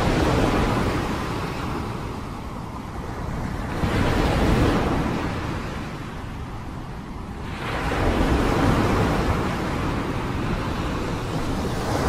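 Rushing noise that swells and eases in slow surges about every four seconds.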